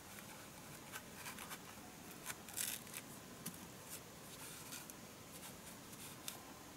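A large curved knife shaving the skin off a small fruit in short, irregular scraping strokes, one stronger stroke about two and a half seconds in.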